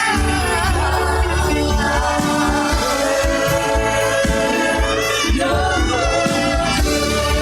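Gospel worship music with singing voices over sustained instrumental chords and a steady low bass pulse.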